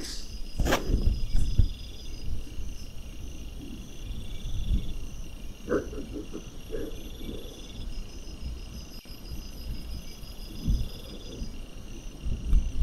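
Background trilling calls: trains of rapid high-pitched pulses at a few different pitches, each lasting a second or two and repeating throughout. A sharp click comes about a second in, with a few softer knocks and rustles later.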